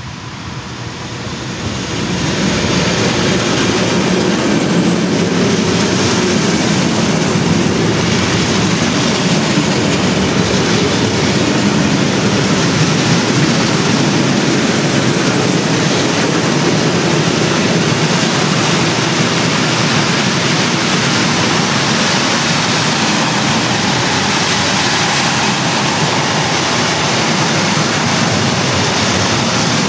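BLS Cargo class 485 electric freight locomotive passing close by at the head of a mixed freight train, then a long string of freight wagons rolling past on the rails. The noise builds over the first two seconds, then holds steady and loud.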